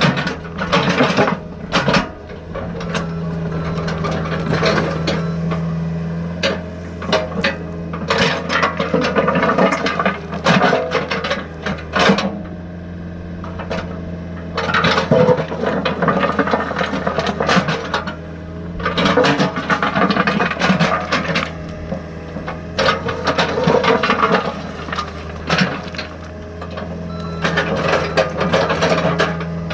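Small excavator at work: a steady motor hum with gear rattle, under repeated bursts of its bucket scraping and crunching through sand.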